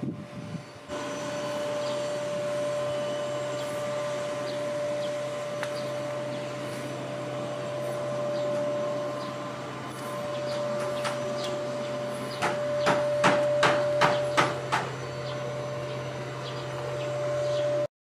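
A steady machine hum with a constant high whine, and a quick run of sharp knocks about twelve to fifteen seconds in. The sound cuts off suddenly near the end.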